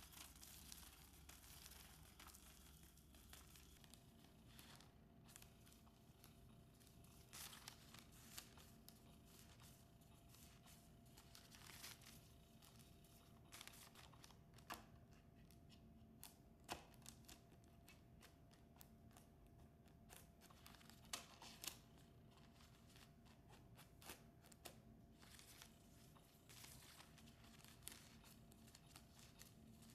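Faint, irregular scratching and rustling as a cat paws and claws at the fabric cover of a motorized Catch Me If You Can cat toy, with a faint steady hum from the toy's motor beneath.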